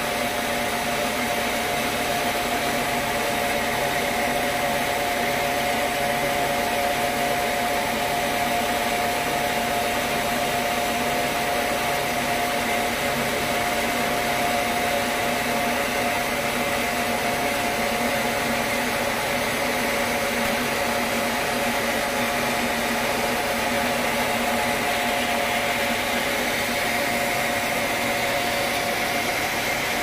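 Band sawmill running steadily with its blade spinning free, not yet cutting, a constant machine hum with a few steady tones in it.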